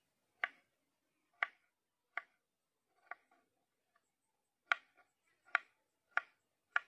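Kitchen knife cutting peeled potatoes on a wooden chopping board: about eight sharp knocks of the blade on the wood, unevenly spaced at roughly one a second, with a pause in the middle.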